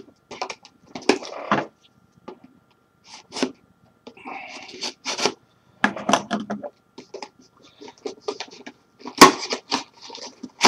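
A gaming mouse's retail box being opened and handled: scattered crackles, scrapes and clicks of cardboard and plastic packaging, with one sharp knock near the end.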